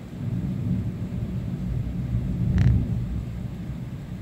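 Thunder rolling: a low rumble that swells, peaks in a sharper crack about two and a half seconds in, then fades.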